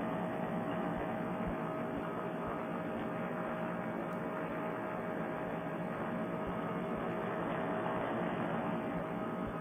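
Paramotor trike engine and propeller running steadily in cruise flight, heard muffled through a Bluetooth headset microphone as an even hum with a faint constant tone.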